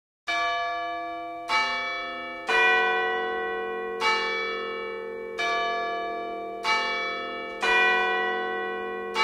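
Tuned chime bells striking a slow sequence of about eight notes at changing pitches, roughly one a second, each note ringing on under the next: a clock's hour chime.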